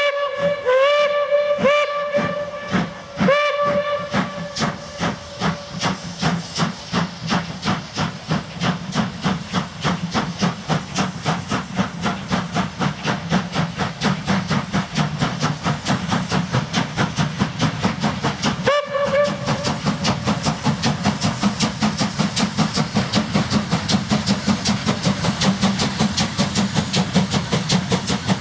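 Steam locomotive sounding its whistle in several short blasts, then pulling away, its exhaust chuffs quickening steadily. One more short whistle blast comes about two-thirds of the way through.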